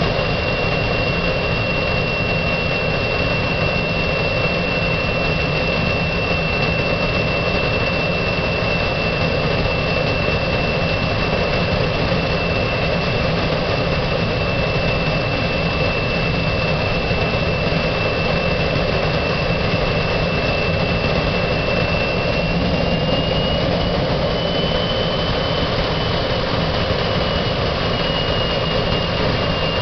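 Fairchild J44 turbojet engine running steadily, a dense rushing roar under a high, steady whine. The whine rises slightly a little past twenty seconds in, holds, then settles back down a few seconds later.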